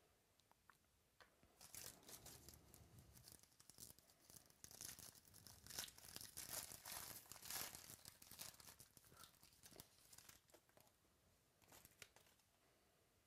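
Faint crinkling and rustling of a wrapper being handled, building up about a second and a half in and trailing off near the end.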